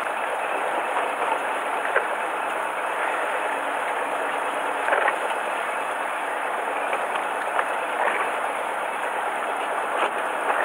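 Steady rushing noise aboard a small fishing boat, with a few faint clicks.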